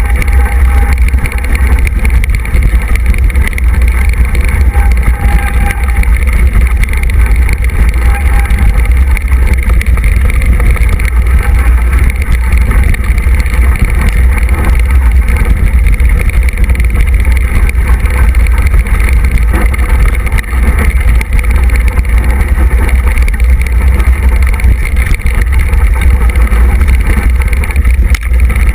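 Mountain bike rolling fast down a rough dirt trail: a constant loud rumble from wind buffeting the microphone and the tyres and frame over the ground.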